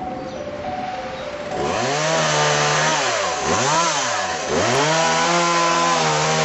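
Two-stroke chainsaw starts running about one and a half seconds in and holds a high steady pitch. The throttle is let off and opened again twice in quick succession. At the start a simple stepped jingle melody is heard.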